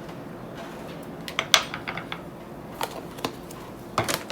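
A spoon clinking and tapping against a bowl and ingredient container as baking powder is measured out: a scattering of short, light clicks, several in quick succession about a second in and a couple more near the end.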